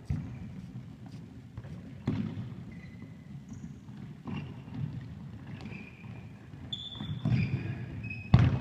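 A football being kicked and bouncing on a sports hall floor: about five thumps a couple of seconds apart, each echoing in the hall. Short high squeaks come in near the end.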